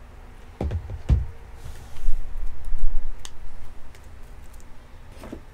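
Hands picking up trading cards in hard plastic holders: a few plastic clacks and knocks, with heavier handling thumps in the middle.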